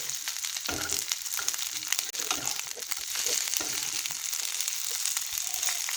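Frogs frying in hot oil in a pan, a steady sizzle with dense crackling throughout.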